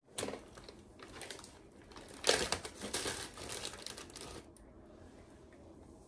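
A zip-top plastic bag crinkling as it is handled, in irregular bursts for about four seconds, loudest a little past two seconds in.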